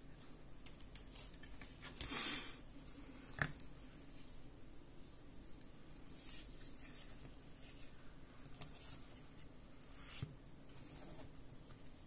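Handling noise as a Samsung TV remote is worked into a soft silicone case: quiet rubbing and scuffing of silicone against the plastic remote, with a longer scuff about two seconds in and a sharp click a second later.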